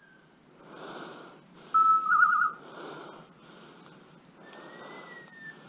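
Footsteps and rustling through dry leaf litter and brush, with a loud, short whistle about two seconds in that holds one pitch and then warbles. Faint, thin gliding whistles follow near the end.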